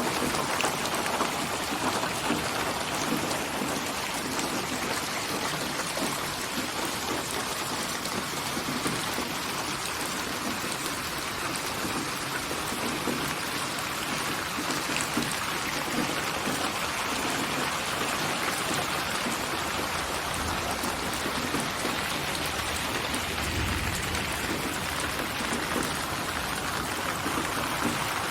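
Steady rain falling on a surface: an even, unbroken hiss of many drops.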